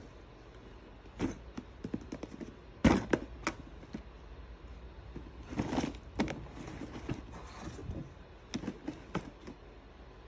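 Hard plastic storage tub of a LEGO Education SPIKE Essential set being handled and turned over: scattered plastic clicks and knocks in three clusters, the loudest a knock about three seconds in.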